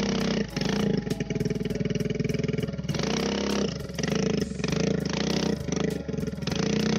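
Trail motorcycle engine running hard under load as it pulls a plough, its revs dipping and picking up again several times.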